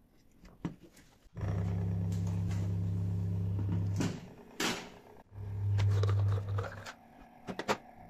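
Washing-machine drain pump motor, run dry straight off mains power, humming steadily: about three seconds, then a pause, then about another second. The hum is even with no knocking, the sign of a sound pump motor. A few short handling knocks fall in the pause and near the end.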